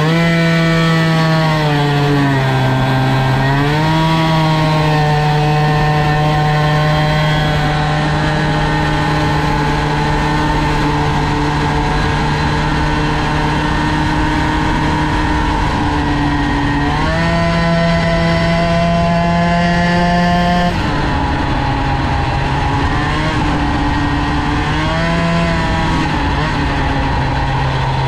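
Polini-kitted two-stroke moped engine with a BOOST cylinder head, pulling at high revs. The revs shoot up at the start, dip briefly and climb again, then hold a steady high drone. They step up for a few seconds past the middle and settle slightly lower near the end.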